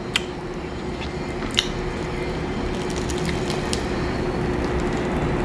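Close-up eating sounds of crispy fried chicken being chewed and pulled apart, with a few sharp crackles of the crisp skin, one near the start and another about a second and a half in.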